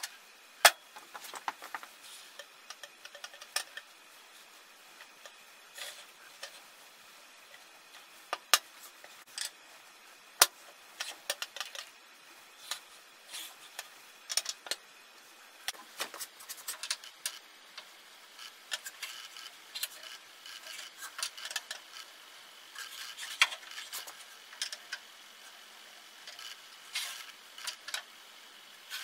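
A metal dial-indicator alignment gauge being set down, slid and adjusted on a cast-iron table saw top: scattered sharp metallic clicks and knocks with light scraping between them. The loudest knocks come right at the start and a few around the middle.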